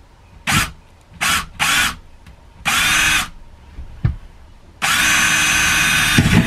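Cordless drill with a 5/32-inch bit boring a pilot hole into a travel trailer's wall: several short trigger bursts to start the hole, then one longer steady run near the end.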